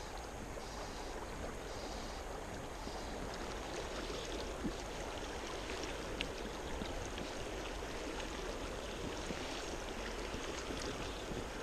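River water rushing steadily over a riffle, with a few faint clicks. A faint high hiss pulses on and off about once a second in the first few seconds.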